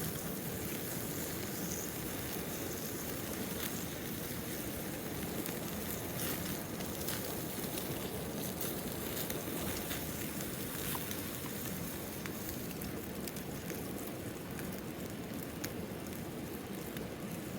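Campfire burning, with scattered small crackles and pops over a steady rushing noise.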